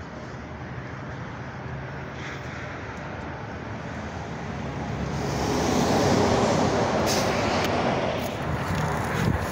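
Road traffic noise with a low engine hum, swelling louder about halfway through as a vehicle comes closer. A few sharp clicks near the end.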